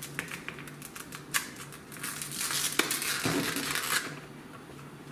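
Packaging of a set of cable clips being handled and opened by hand: crinkling and scraping with a few sharp clicks, busiest between about two and four seconds in.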